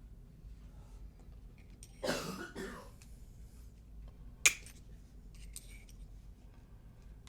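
A person coughs once, in two quick parts, about two seconds in. A sharp click follows a couple of seconds later, then a few faint light clicks, as the padlock is worked apart.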